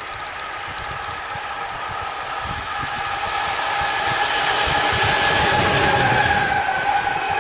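A train approaching, growing steadily louder, with a steady high whine over a low rumble.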